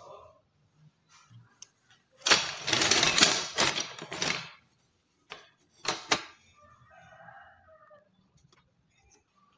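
Thin wooden strips clattering against each other and a stone floor as they are spread out by hand: a dense rattle lasting about two seconds, then two short knocks.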